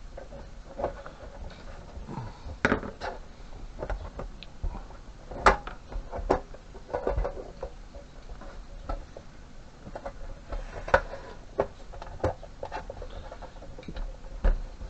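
Irregular clicks, knocks and light scraping as the lid of a CCTV recorder's case is worked and pried at by hand, still not coming free, with sharper knocks about three, five and eleven seconds in.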